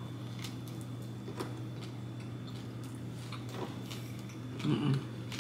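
Two people chewing soft glazed donuts: faint mouth clicks over a steady low hum, with a short hummed "mm" near the end.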